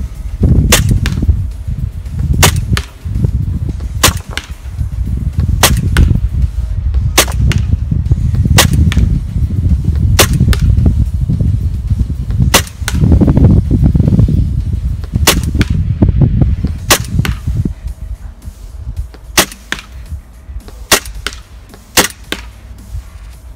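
Tokyo Marui M&P9 gas blowback airsoft pistol firing single shots, about a dozen, one every second or two, with a low rumble underneath that fades near the end.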